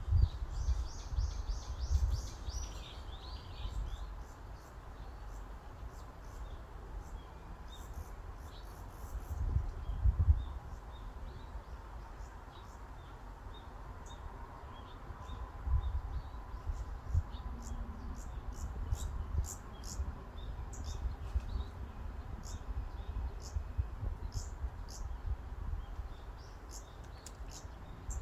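Forest ambience: breeze gusting as a low rumble on the microphone, with small birds chirping high above it. A quick run of chirps comes in the first few seconds, and repeated short chirps follow through the second half.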